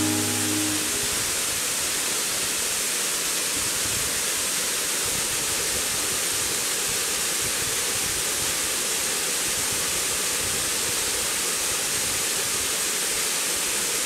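Waterfall pouring steadily into a rocky pool: an even rushing hiss of falling water. A music chord fades out about a second in.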